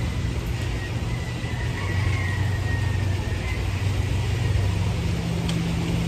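Steady low mechanical hum over an even background rush, with a faint click near the end.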